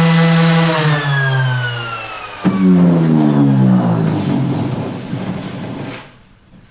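Electric power tool's motor running at speed, then switched off and winding down with a falling whine. About two and a half seconds in it is clicked on again briefly and spins down once more, going quiet about six seconds in.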